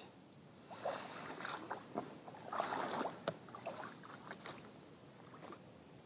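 Faint, scattered splashing and rustling over shallow creek water, with a few light clicks, while a small green sunfish is handled on the line. A steady high insect trill begins near the end.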